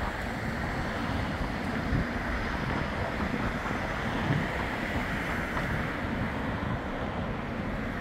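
Steady wind noise buffeting the microphone, with a Bombardier Flexity 2 tram pulling away from the stop underneath it.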